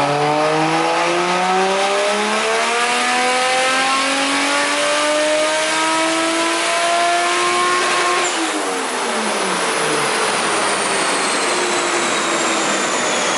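Lexus SC300's turbocharged 1JZ inline-six on a chassis dyno making a full-throttle pull, its pitch climbing steadily for about eight seconds. The revs then drop away sharply as the throttle is closed, leaving a high whistle that falls slowly.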